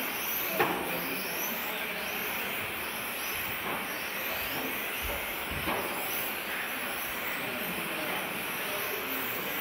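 Several 1/10-scale electric touring cars with 17.5T brushless motors racing, their high-pitched motor and drivetrain whines rising and falling as they accelerate and brake. A sharp knock about half a second in, and a weaker one near six seconds.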